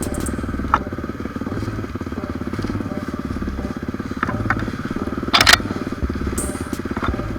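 Single-cylinder four-stroke engine of a Honda XR 250 Tornado trail bike running steadily under way on a trail climb, with a few light knocks and a short crunch about five seconds in, the loudest moment.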